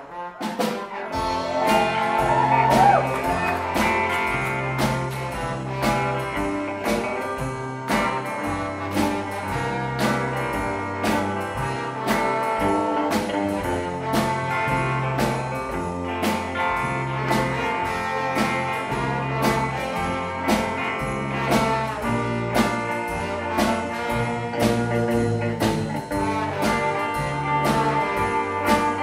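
Live rockabilly band playing an instrumental passage: electric guitar over a walking upright bass line, drum kit keeping a steady beat, with horns. The band comes back in together after a short break right at the start.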